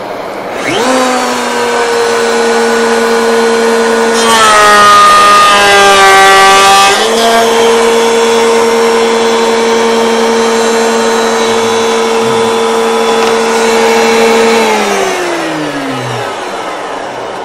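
Table-mounted router spinning up with a rising whine, then routing a bullnose across the end of a small cherry hinge blank for about three seconds: the motor's pitch drops and the sound grows louder and rougher while the bit is cutting. It then runs free at its higher steady pitch, is switched off, and winds down near the end.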